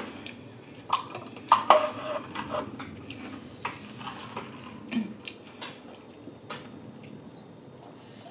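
A lidded fountain-drink cup of lemonade being picked up and handled: a string of sharp clicks and knocks from the plastic lid and straw, loudest in the first two seconds and thinning out after, then a sip through the straw near the end.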